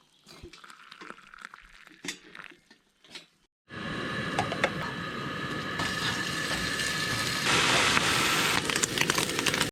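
Light clicks and knocks of camp gear being handled, then from about three and a half seconds in a loud, steady sizzle of food frying in a hot pan, swelling briefly near the end.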